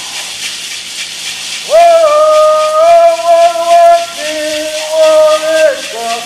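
Hand-held gourd rattles shaken steadily in a continuous hiss. From about two seconds in, a voice sings two long held notes over them, louder than the rattles.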